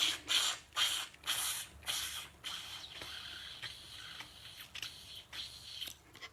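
Close-up chewing of someone eating: about five short chewing bursts in the first two and a half seconds, then softer continuous chewing.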